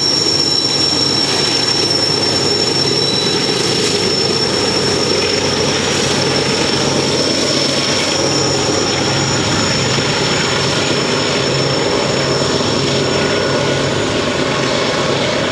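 BNSF GE diesel locomotives running past with a freight train, engines rumbling under a steady high-pitched squeal from the wheels on the rails. The squeal dims somewhat in the last few seconds.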